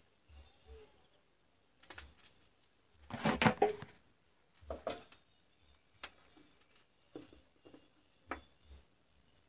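Handling noise of wires and 18650 Li-ion cells being moved about on a workbench: scattered small clicks and knocks, with a louder clattering rustle about three seconds in.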